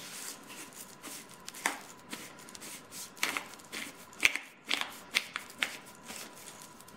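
Hand-twisted pepper grinder cracking peppercorns, in short irregular spells of crunching and clicking, most of them in the second half.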